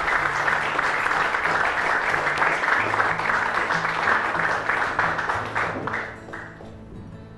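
Audience applauding, with background music playing low steady bass notes underneath; the applause dies away about six seconds in, leaving the music.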